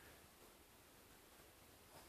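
Near silence: faint, steady room hiss.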